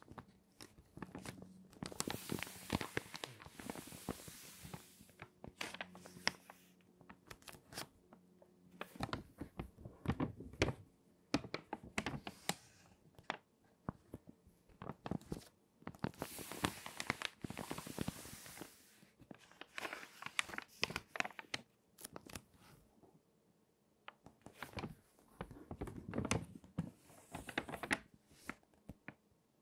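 Water-damaged magazine pages being turned and handled, the stiffened paper crinkling and crackling in repeated bursts with short pauses between the page turns.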